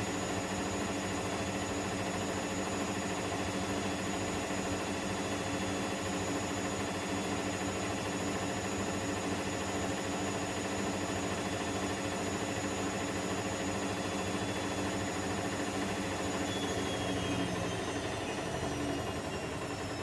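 Electrolux EWF10843 front-loading washing machine on its spin cycle, a loud steady whine and hum from the spinning drum. About three quarters of the way through the pitch starts to fall as the drum begins to slow down.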